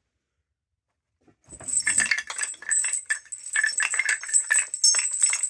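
Hand-made Foley effect for something scary: metal objects shaken, rattling and jingling irregularly with a few bell-like rings, starting after about a second and a half of silence.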